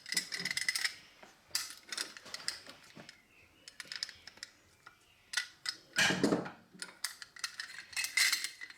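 Rapid clicks and clinks of metal toy parts being handled as wheels are worked off an old all-metal Tonka truck, with a louder knock about six seconds in.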